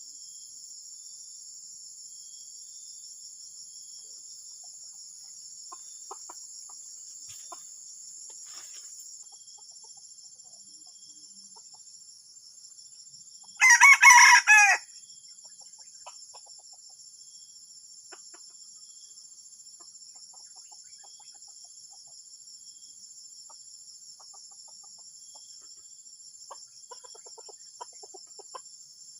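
A junglefowl crows once, about halfway through: a short crow of a little over a second, broken into a few parts. It sounds over a steady, high-pitched insect chorus, with faint softer fowl calls near the end.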